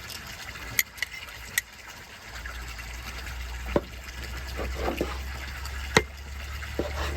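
Running water, with a few sharp clicks and knocks. From about two seconds in, a low steady hum joins it.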